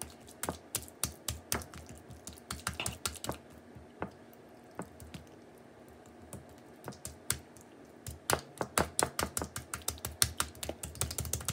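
Bare hands patting and pressing raw ground turkey meatloaf mixture into a loaf: quick, irregular soft slaps and pats. They thin out for a few seconds in the middle and come thick and fast again near the end.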